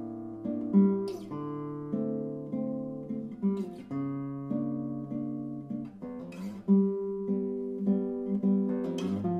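Solo classical guitar playing a contemporary concert étude: plucked notes and chords ring over held bass notes. Sharp strummed chords cut in about every two and a half to three seconds.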